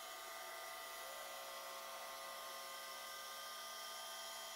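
Kearney & Trecker rotary head milling machine running, its end mill taking a light cut around the outside diameter of a driveshaft yoke as the rotary axis turns it: a steady whine with several tones over a hiss. An added tone comes in about a second in and drops out about three and a half seconds in.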